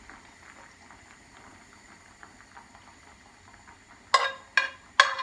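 A metal spoon moving fried mushrooms out of a non-stick frying pan onto a plate, with faint light scrapes, then three sharp ringing taps of the spoon on the pan about half a second apart near the end.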